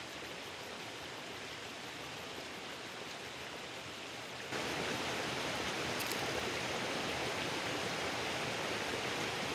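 Steady, even hissing background noise outdoors, with no distinct events, stepping up in level about four and a half seconds in.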